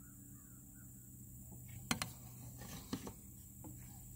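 Quiet: a caulking gun laying a bead of self-leveling RV roof sealant, with a few soft clicks about a second apart from the gun over a low steady hum.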